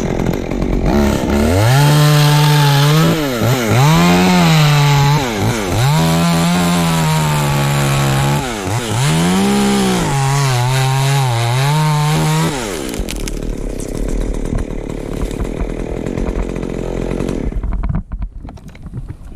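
Chainsaw running and cutting into the elm top: the engine pitch dips again and again as the chain loads in the wood and climbs back as it frees, stopping about 12 seconds in. A few seconds of steady rushing noise follow before it quiets.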